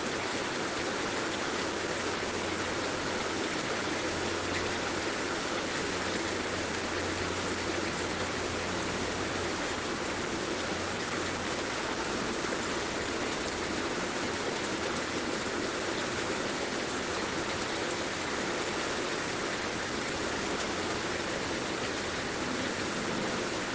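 Heavy rain falling steadily, an even, unbroken hiss with no lulls.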